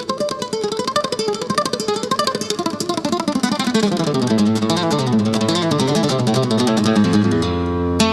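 Flamenco guitar playing a fast run of rapidly plucked single notes that rise and fall in pitch, moving down into the low strings about halfway through and landing on a held low note near the end.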